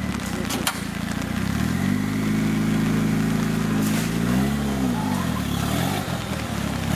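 Off-road 4x4 competition vehicle's engine revving, rising about a second and a half in, holding high, then swinging up and down and dropping back before rising again near the end. A few sharp clicks or knocks near the start and one in the middle.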